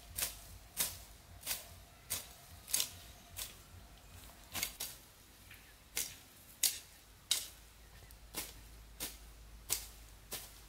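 Short, crisp snips of a hand-held blade cutting grass stems close to the ground, about one every two-thirds of a second with a couple of brief pauses.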